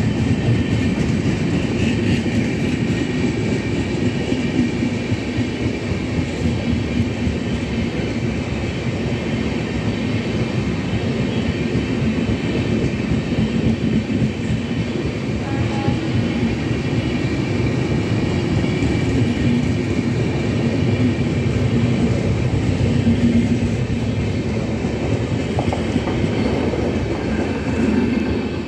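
Express passenger train's coaches rolling steadily past on the track, a continuous rumble with a rapid clatter of wheels over the rails. The sound eases slightly right at the end as the last car, the luggage van, goes by.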